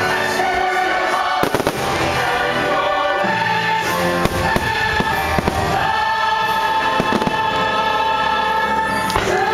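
Fireworks bursting in scattered bangs over a loud orchestral show soundtrack with a choir holding long notes.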